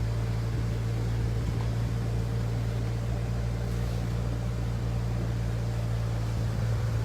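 Steady low drone of a Force Gurkha 4x4's diesel engine, heard from inside the cabin as it drives slowly through flood water.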